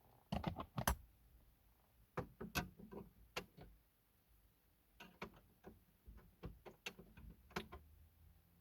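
Three spells of quick, sharp little clicks and taps: hand tools and hard plastic being handled while working at a car radio's fixings.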